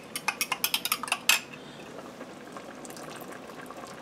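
A utensil clicking quickly against a glass measuring cup, about six taps a second, as flour is whisked into cold water to a smooth paste; the mixing stops after about a second and a half. A faint steady bubbling of the stew simmering under its lid remains.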